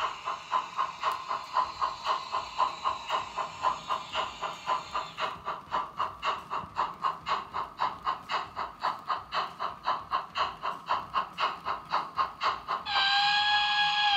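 Model steam locomotive's sound module playing rhythmic steam chuffs, about four a second, with a hiss of steam over the first few seconds. About a second before the end a steam whistle starts and holds.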